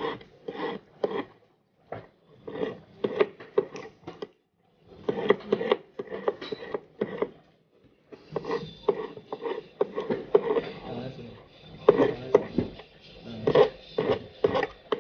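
A hand file rasping back and forth on the end of a silver wire resting on a wooden bench peg, shaping the tip to a point. The strokes come roughly two a second, in runs broken by short pauses.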